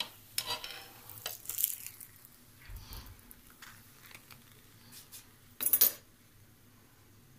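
Metal spatula scraping and clinking against a nonstick tawa and a plate as a cooked paratha is lifted off and served: a few short, separate scrapes, with a louder one late on.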